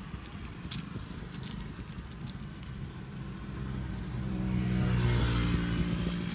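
A motor vehicle's engine running nearby, growing louder about four seconds in and then easing off, like a vehicle passing by.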